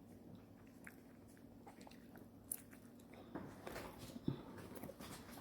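Faint, scattered crunches and clicks of someone biting and chewing crisp food, more frequent in the second half.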